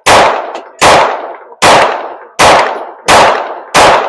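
A string of six gunshots fired at a steady pace, about one every three-quarters of a second, each trailing off in a short echo.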